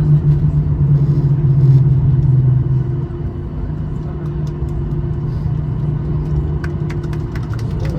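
Boeing 737-800 jet engines heard from inside the passenger cabin during the rollout after landing: a loud, steady drone whose low hum drops away about three seconds in as the engines wind down. A few short clicks come near the end.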